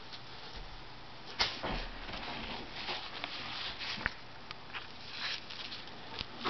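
Old, worn paper comic books rustling and shuffling as they are handled, with scattered sharp taps and clicks, the sharpest about a second and a half in.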